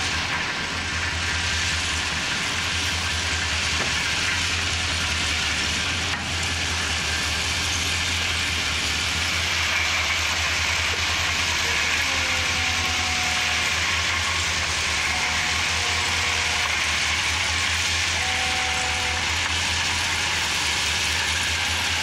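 Ballast hopper wagons rolling slowly past while unloading: a steady loud rush of crushed-rock ballast pouring from the hopper doors onto the track, over a low rumble from the wagons.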